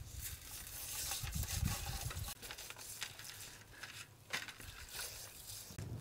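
Salt sprinkled by hand onto a roasted ostrich leg, pattering on the meat and the metal tray, followed by scattered light crinkles and clicks as the leg is handled.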